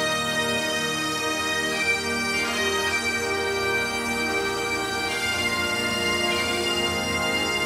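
Recorded Scottish bagpipe music: Highland pipes playing a melody over their steady drones.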